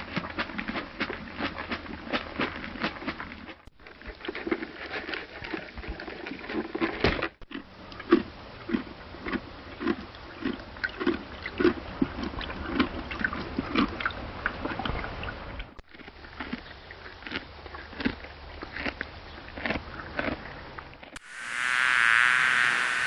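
Crunchy chewing of carrots and grain: repeated bites and grinding, about two chews a second at times, in several short takes joined by abrupt cuts. About two seconds before the end, the steady buzz of a bee swarm begins.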